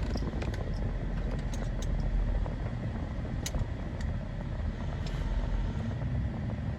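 A vehicle engine idling with a steady low rumble, with scattered light clicks over it.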